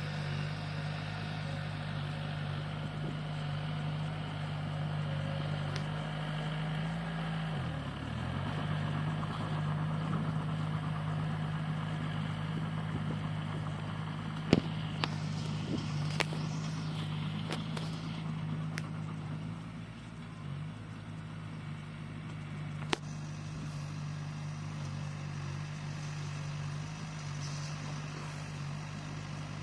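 Crawler bulldozer's diesel engine running steadily, its pitch dipping briefly about eight seconds in, as if under load, then picking back up. A few sharp metallic knocks cut through, the loudest about halfway.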